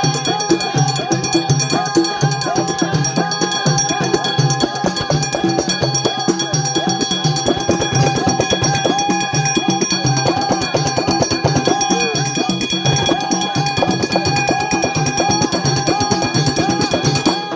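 Background music with a steady, busy drum and percussion rhythm under a repeating melody.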